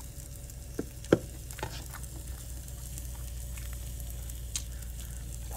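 Shrimp frying in a pan with a soft sizzle, stirred, with a few sharp knocks of a utensil against the pan, the loudest about a second in.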